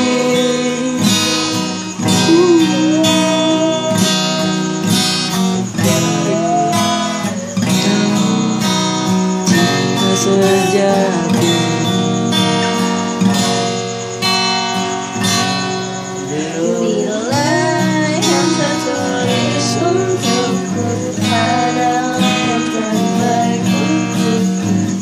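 Acoustic guitar strummed steadily in chords, an instrumental passage of a pop ballad, with a voice singing or humming along in places.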